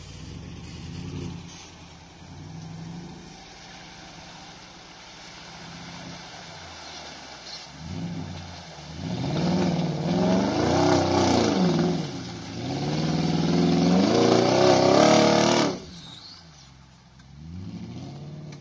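Straight-piped 4.4-litre BMW M62 V8 of a 2005 Range Rover L322 revving hard under load while climbing a muddy track, the exhaust note rising and falling several times. It is loudest for about seven seconds in the middle, cuts off suddenly as the throttle closes, then gives one more short rev near the end.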